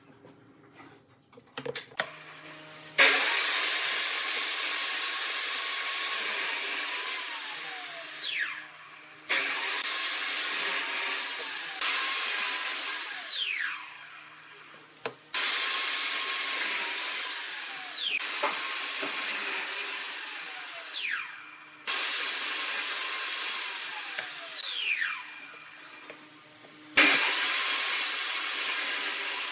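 A power tool working wood, run in five bursts a few seconds apart: each starts suddenly and ends with a whine falling in pitch as the motor coasts down.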